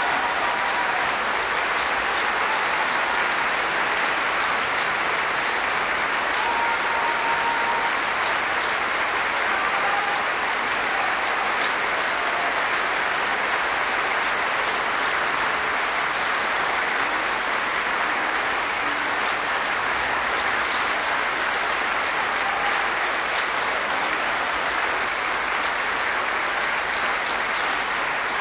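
Theatre audience applauding steadily at length at the end of an opera aria.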